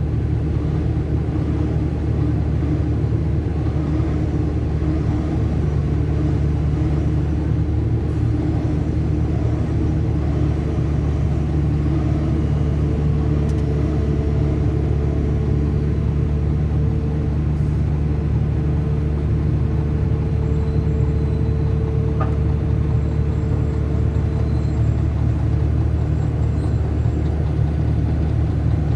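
Volvo EC480DL excavator's diesel engine running steadily under continuous work, with a faint higher whine that comes in and out through the middle.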